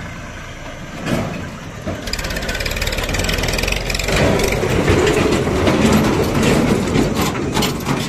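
Tractor engine running while it tows two trailers, growing louder as it approaches, with the empty trailers rattling and clattering over the rough track near the end.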